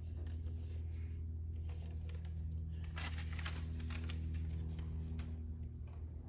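Steady low electrical hum, with soft rustling and light tapping noises over it, busiest about three seconds in.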